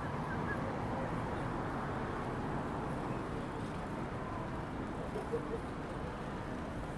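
Steady city ambience over a railway station: a low, even rumble of distant traffic with faint voices, and a short faint squeak about five seconds in.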